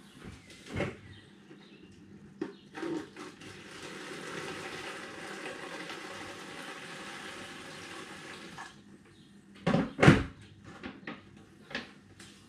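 Hot water poured from a kettle into an emptied cider-kit pouch, a steady pour lasting about six seconds. About a second after the pour stops come two loud knocks.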